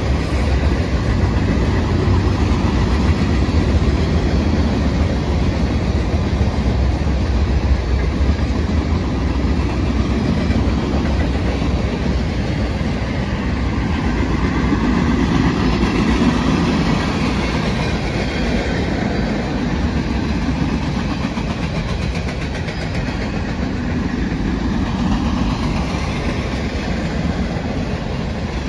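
Union Pacific mixed freight train's boxcars, hoppers and tank cars rolling past, a steady rumble of steel wheels on the rails, easing slightly in loudness toward the end.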